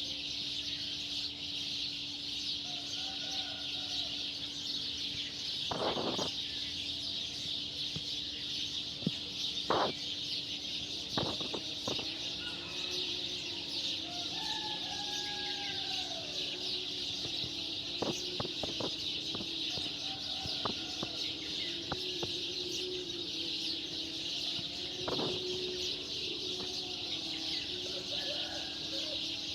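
A dense, unbroken chorus of birds chirping, with chickens calling now and then, clearest around the middle. Under it runs a steady low hum, and a few short knocks sound at intervals.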